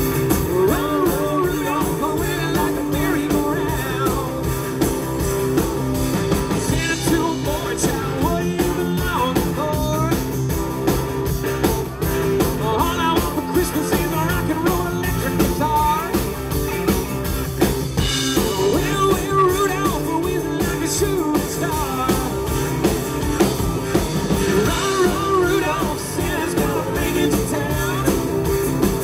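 Live band playing a song: strummed acoustic guitars, electric guitar and a drum kit, with a man singing into a microphone.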